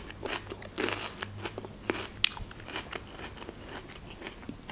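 Close-miked chewing of a mouthful of cherry tomato: irregular wet crunches and mouth clicks.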